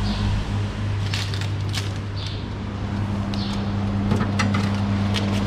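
Loaf pans of bread dough being set into an oven: a few light clicks and knocks of metal against the oven rack, over a steady low hum.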